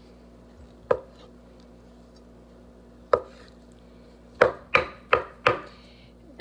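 Chef's knife chopping peeled hard-boiled eggs on a wooden cutting board, the blade knocking on the wood: a single chop about a second in, another about three seconds in, then a quick run of four chops near the end.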